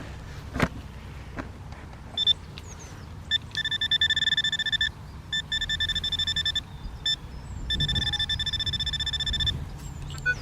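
Handheld metal-detecting pinpointer buzzing in rapid high-pitched pulses as it is held near a buried metal target in the dug hole. It gives a few short chirps first, then three runs of fast beeping of one to two seconds each.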